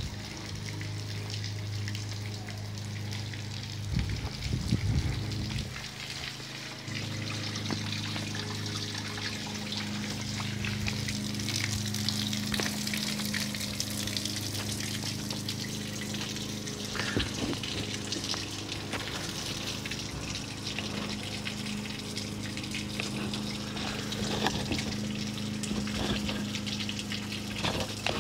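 Water trickling and splashing as it runs out of a boat's transom outlets onto wet pavement, fed by a garden hose, with a steady low hum underneath that drops out briefly about six seconds in.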